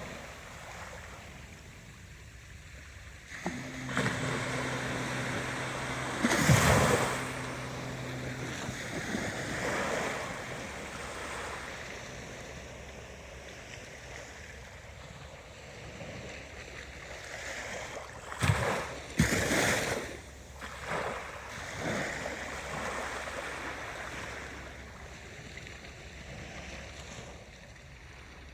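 Ocean waves washing in and breaking, the noise swelling and falling in surges, with a few sharper, louder surges about a third of the way in and again past the middle. A low steady hum sounds for about five seconds early on.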